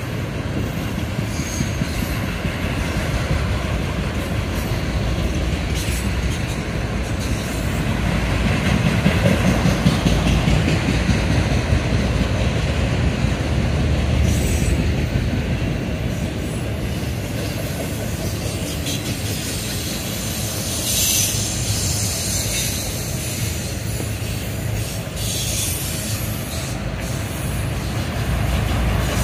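Freight train of autorack cars rolling past: a steady rumble of wheels on rail that swells a little partway through. Brief high wheel squeals cut in a few times, most plainly about two-thirds of the way in.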